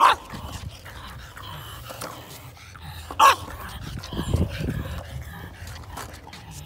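A dog barks twice, two short sharp barks about three seconds apart, over the low rolling rumble of skateboard wheels on concrete.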